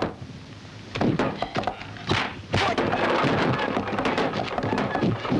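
Dubbed film fight sound effects: sharp wooden thunks and knocks, a few separate ones after a quieter first second, then a busy, continuous clatter of blows from about halfway on.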